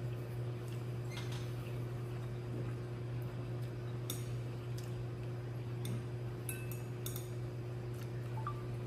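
Chopsticks clicking and tapping against a plate of noodles: scattered light clinks, a few ringing briefly, with a small cluster about two-thirds through. A steady low hum lies underneath.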